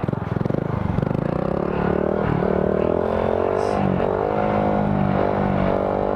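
Honda Grom's 125 cc single-cylinder engine held at moderate revs with a slightly wavering pitch, as the throttle is worked to keep a slow wheelie up.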